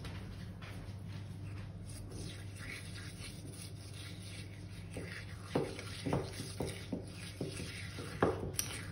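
Metal spoon stirring and scraping a thick paste of pistachio cream and tahini around a small ceramic bowl. From about halfway in there are a few light clicks of the spoon against the bowl.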